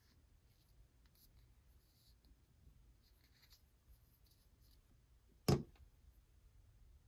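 Faint rustling and light taps of hands handling a plastic figurine, then near the end one sharp knock as the Zurg figurine's plastic base is set down on a hard tabletop.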